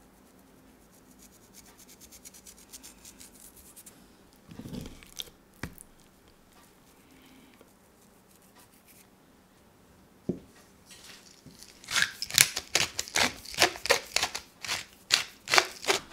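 Black pepper being ground: a quick, irregular run of sharp, crunchy cracks in the last few seconds. Before it come only faint rubbing and a few single clicks.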